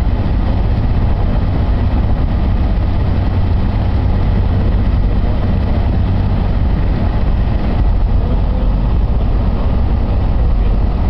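Steady road and engine noise inside a moving car's cabin at freeway speed, a constant deep rumble with a hiss over it.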